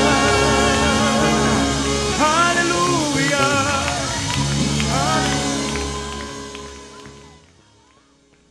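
Gospel song: a singer with a wavering vibrato voice over instrumental accompaniment, fading away over the last couple of seconds.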